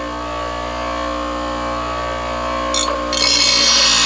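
Electric grinder sharpening a steel lawn-mower blade: the motor runs at a steady pitch, and the hiss of the blade edge against the wheel grows louder about three seconds in.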